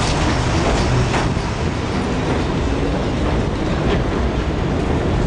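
New York City subway train on the elevated J/M line running past with a steady rumble of wheels on rail. A few faint clicks come through, about a second in and again near four seconds.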